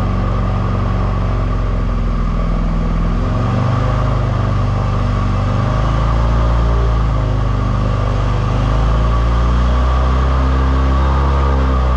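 Airboat engine and propeller running under way, loud and steady, with its pitch shifting a few times as the throttle changes.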